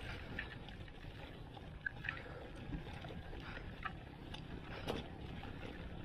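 Wind rumbling on the microphone while riding a road bike, with a few short, faint high chirps scattered through.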